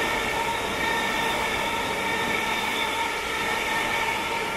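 Electric multiple-unit passenger train running past at speed: a steady rush of wheels on rail with a high-pitched whine of several steady tones over it.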